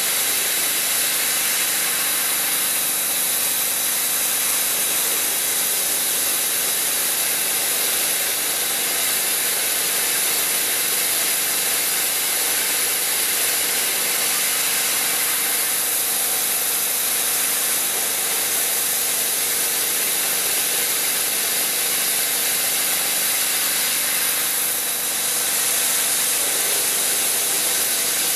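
CNC-converted Myford Super 7 lathe turning a part: the spinning chuck and the tool cutting make a steady hiss, with a thin steady high tone running through it.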